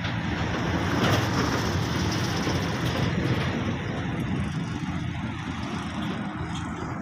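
Heavy diesel engines running steadily: the truck-mounted mobile crane holding a suspended room container, and the flatbed truck driving out from under it. The noise swells about a second in and eases off towards the end.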